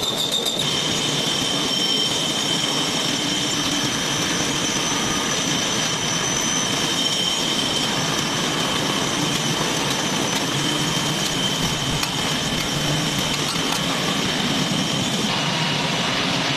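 Machinery running steadily: a broad mechanical noise with a steady high-pitched whine on top, its tone shifting slightly near the end.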